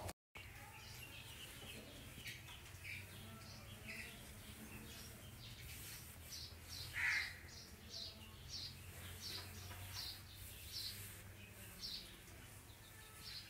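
Faint birds chirping: a run of short, high chirps about twice a second through the second half, with one louder call about seven seconds in, over a steady low hum.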